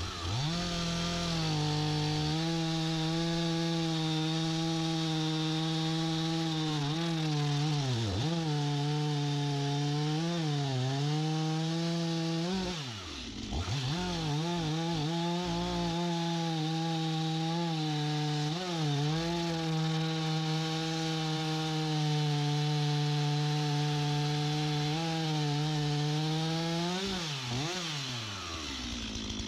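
STIHL MS251C two-stroke chainsaw running at high revs while bucking maple logs into rounds. Its steady high whine sags briefly several times as the chain bogs in the cut. It drops sharply about thirteen seconds in and falls away near the end.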